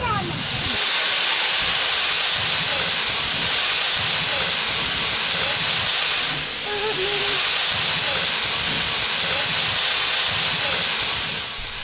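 Steam locomotive 1072 letting off steam in a loud, steady hiss that dips briefly about six and a half seconds in and then resumes.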